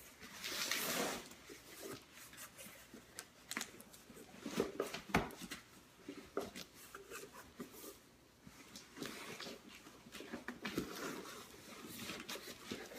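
A cardboard box being handled and opened by hand: intermittent rustling and scraping of cardboard with scattered light knocks and clicks.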